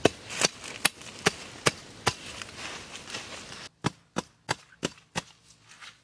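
A hand tool chopping into grass turf and soil: sharp, regular strikes about two or three a second. The strikes come in two runs, with a pause of about a second and a half after the middle.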